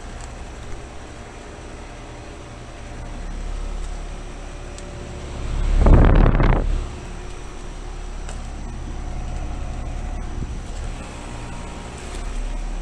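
Outdoor heat pump condenser units running in cooling mode, a steady low hum of fans and compressors. About six seconds in, a loud rushing burst lasts a second or so.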